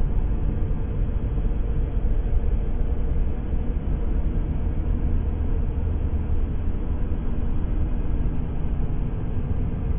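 Empty-room ambience: a steady low rumble of room tone with a faint even hum, unchanging throughout.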